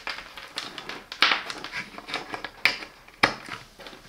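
Clicks and rustling of multimeter test leads being handled and their plugs pushed into the meter's jacks, with a few sharp clicks about a second in and near three seconds.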